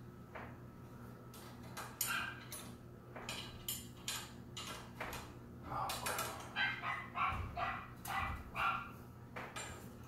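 A puppy barking repeatedly in short, sharp barks, most of them packed between about six and nine seconds in.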